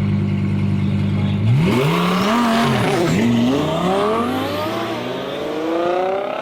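Twin-turbo Audi R8 V10 drag car sits at a steady engine note, then about a second and a half in launches hard. The revs climb and fall back several times in quick upshifts, then rise in longer pulls, the sound growing fainter as the car runs away down the strip.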